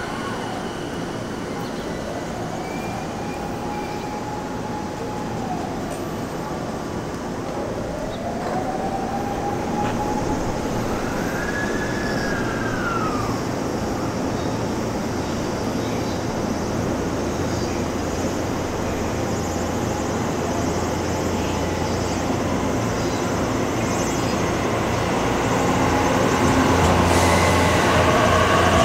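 Electric trains at a station: a JR E217-series commuter train running past, then an E257-series limited-express EMU pulling in alongside the platform. Its running noise grows louder toward the end, with a low hum and tones that rise and fall.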